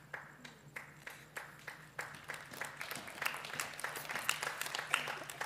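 Audience clapping: scattered single claps at first, filling out into fuller applause after about two seconds.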